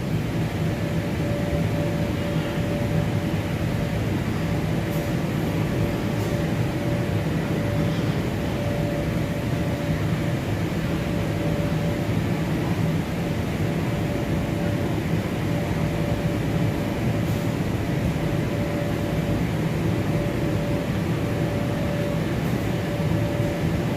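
Steady drone of the electric air blowers that keep inflatable slides and bounce houses inflated: an unbroken low hum with a constant tone above it.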